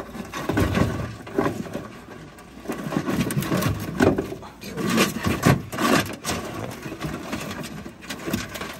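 Irregular knocks and scrapes of live Dungeness crabs' shells as they are handled out of a bag.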